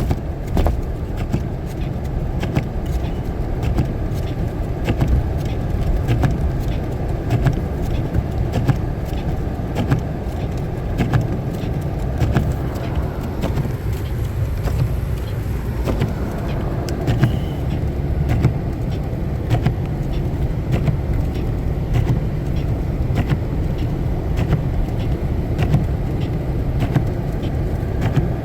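Car driving on a snow-covered road: a steady low rumble from the vehicle with frequent irregular clicks and knocks over it.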